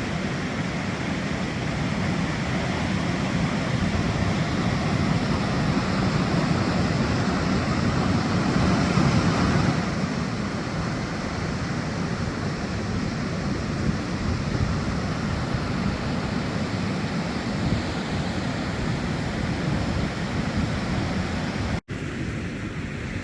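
Steady rushing of a swollen, flooded river, mixed with wind on the microphone. It swells about nine seconds in, then eases, and drops out for a moment near the end.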